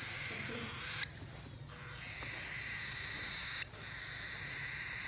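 Cockatiel giving long, harsh, raspy calls, three in a row with short breaks between.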